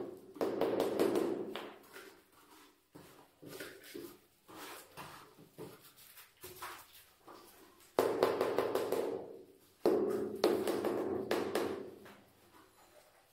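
Gloved hands tapping and slapping a large floor tile laid on fresh adhesive to bed it down: a run of sharp taps with several heavier thumps that ring briefly in the room, the loudest about 8 and 10 seconds in.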